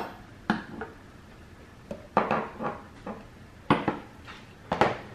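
Capuchin monkey knocking metal hand tools (a hammer against pliers, a screwdriver and the tabletop): about ten irregular sharp knocks and clinks, some with a short metallic ring.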